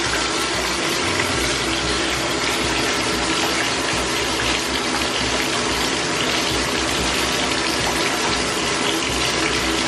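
Tap water running steadily into a bathtub.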